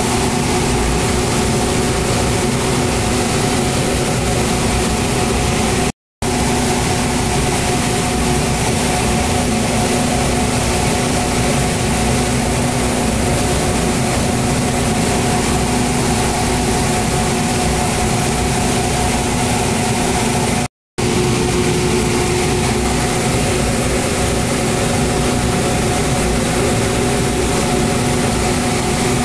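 Loud, steady mechanical hum of a running motor or fan, holding a few constant low tones over a broad hiss. It cuts out abruptly for a moment twice.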